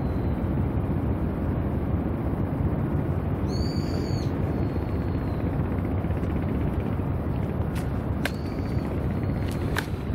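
Steady low outdoor rumble of wind and waterfront background. A short, high, arched whistling call sounds about three and a half seconds in, and a few sharp clicks come near the end.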